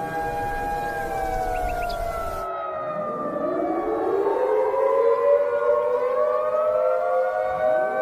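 Outdoor civil defense warning siren wailing: its several tones fall in pitch, sweep back up about three seconds in and hold steady, then begin falling and rising again near the end. A hiss underneath cuts off suddenly about two and a half seconds in.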